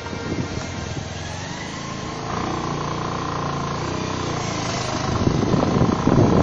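An engine running steadily, getting louder over the last second or so.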